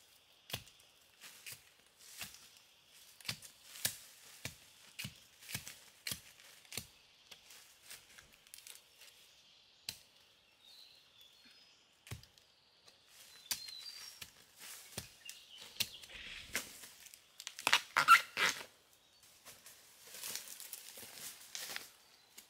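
A digging tool chopping into soil under dry bamboo-leaf litter, about two sharp strikes a second, then slowing to scattered softer knocks. Near the end a louder burst of crackling dry leaves and twigs, followed by rustling in the leaf litter.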